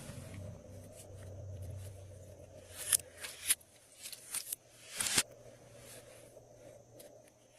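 Glossy slime being squished and kneaded by hand, giving several short crackling, sticky pops, the loudest about three and five seconds in.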